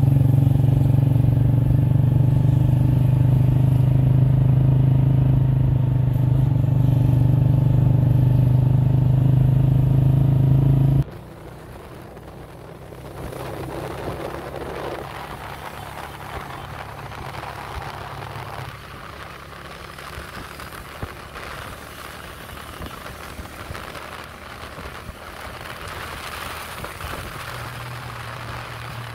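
Motorcycle engine running steadily at cruising speed, a loud even hum. About a third of the way through it drops abruptly to a much quieter rush of wind and road noise with the engine faint underneath.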